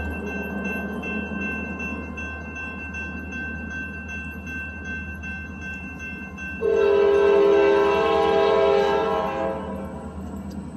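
Train horn sounding one long blast of about three seconds, starting suddenly about two-thirds of the way in and fading out. Under it run a steady low rumble and the grade-crossing warning bell.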